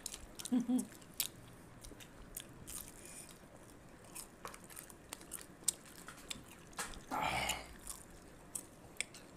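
People chewing and biting into crisp fried food such as jalebi and vada close to the microphone: scattered sharp crunches and wet mouth clicks. There is a brief hum about half a second in and a short breathy rush about seven seconds in.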